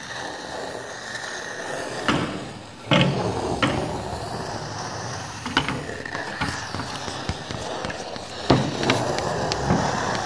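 Sound effects for an animated logo intro: a steady scratchy, rattling noise with a handful of sharp knocks, the loudest about three seconds in and again about eight and a half seconds in.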